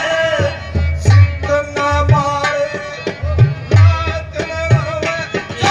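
Ragini folk music: a held melody line over repeated hand-drum strokes of the tabla kind, without clear singing.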